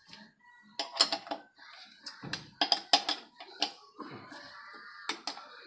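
Metal clinks and clanks of a steel wheel spanner being fitted onto and turned on the wheel nuts of a TVS King auto-rickshaw wheel, tightening them: a dozen or so sharp knocks in irregular clusters.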